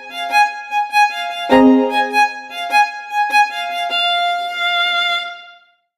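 Instrumental background music, a melody of held notes that fades out near the end.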